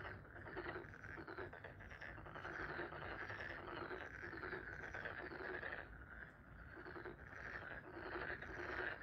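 A dense chorus of animal calls: short calls repeating about twice a second over a steady chirring, briefly thinning out around six seconds in.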